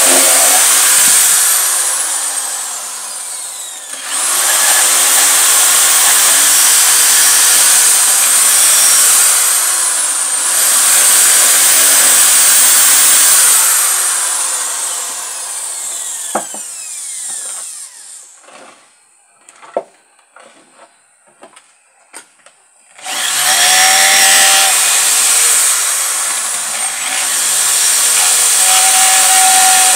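Corded electric drill boring into a wooden board: the motor runs at full speed while the bit cuts the wood, and its whine falls as it winds down and then spins back up, twice in the first half. It winds down and stops past the middle, leaving a few small knocks for about five seconds, then starts drilling again.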